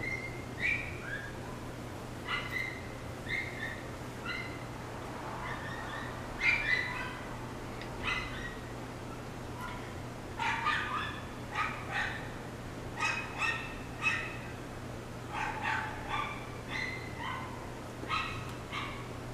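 A dog giving many short, high-pitched calls, scattered at first and coming in quick clusters from about ten seconds in, over a steady low hum.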